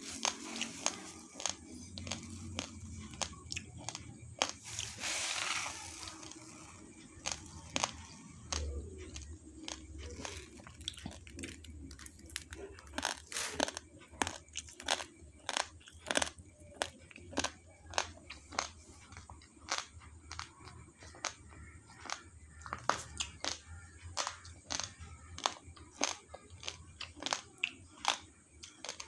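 Raw basmati rice grains crunched between the teeth: a steady run of sharp, brittle cracks, about one or two a second.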